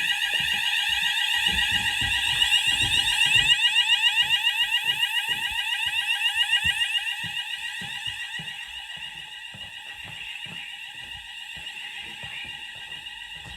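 Fire alarm sounders of a Hochiki ESP addressable system sounding a fast-sweeping alarm tone after a detector was set off with test smoke. The tone grows quieter about halfway through, with faint knocks underneath.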